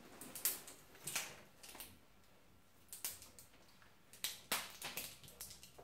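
Irregular clicks and short scrapes of hard plastic surprise-egg capsules being handled and twisted at the seam to open them.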